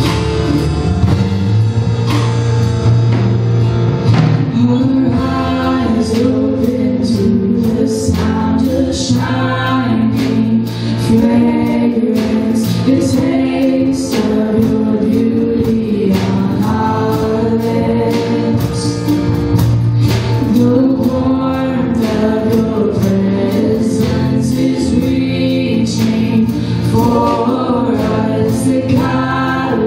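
Live worship band playing: voices singing a song over strummed acoustic guitar and drums.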